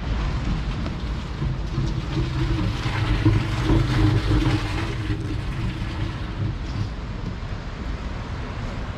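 A vehicle running: a steady rumble with a low hum and a mid-pitched drone that swells in the middle and then fades.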